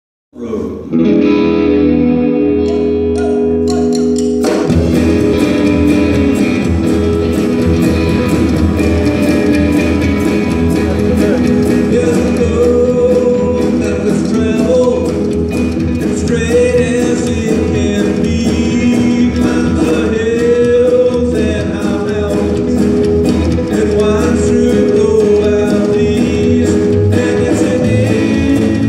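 Live rockabilly-style band: a sustained opening chord rings for about four seconds, then upright bass, drums and electric guitar come in with a steady beat, and a man's lead vocal enters about twelve seconds in.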